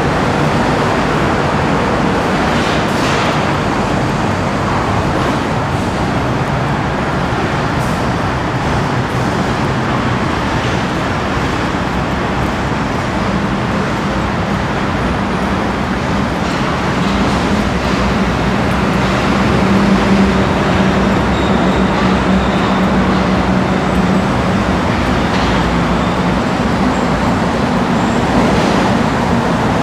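Steady road-traffic rumble, with a low engine hum swelling about two-thirds of the way through, and a few faint footstep-like ticks.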